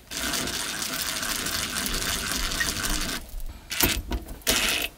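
Cordless DeWalt driver spinning a hose-clamp screw, tightening the clamp around a flexible vent duct. It runs steadily for about three seconds, stops, then gives a few short bursts near the end.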